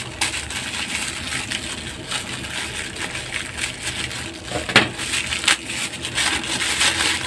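Crinkly plastic snack wrapper crackling and rustling as it is handled and cut open with scissors. There are a couple of sharper snips about five seconds in.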